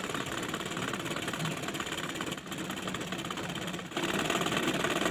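Domestic sewing machine running fast, its needle stitching free-motion embroidery through fabric held in a hoop. It eases off briefly about two and a half seconds in and again near four seconds, then runs louder.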